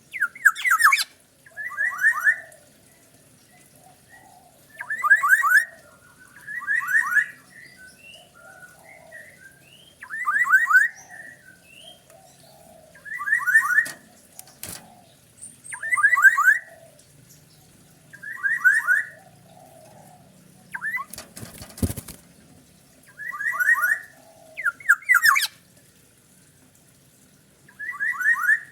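Oriole (kepodang) calling over and over, loud short phrases of several quick notes, one every two to three seconds, with faint softer chatter between them. Two sharp clicks land in the middle.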